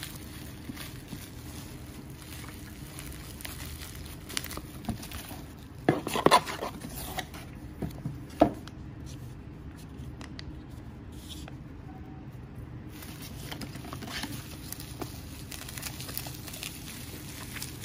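Bubble wrap and paper packaging being handled: scattered crinkling and rustling, with a cluster of louder sharp crackles about a third of the way in and another single one near the middle.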